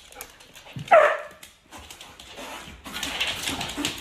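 A dog barks once about a second in, a short call falling in pitch. About three seconds in, a steady crackly noise begins.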